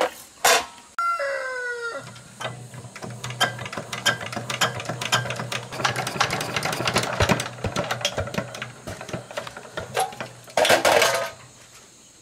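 A rooster crows, its call falling away about a second in. Then comes a long run of rapid metallic clicks and clinks over a steady low hum, as of tools and metal parts being handled, with a short loud hiss near the end.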